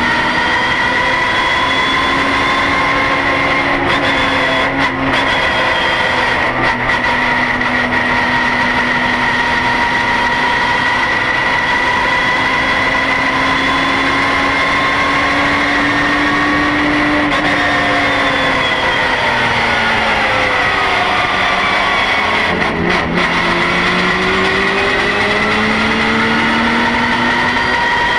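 Porsche GT3 Cup race car's flat-six engine, heard from inside the cockpit, running hard at high revs, with brief cuts about four and a half and six and a half seconds in. Past the middle its pitch falls for a few seconds, breaks off briefly, then climbs again as it pulls.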